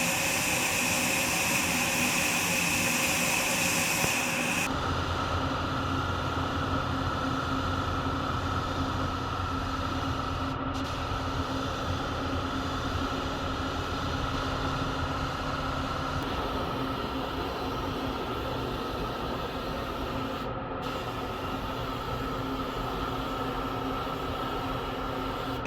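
Steady air noise of a paint booth: ventilation fans and spray-gun air running as a constant drone with a steady whine. The whine shifts abruptly lower about five seconds in.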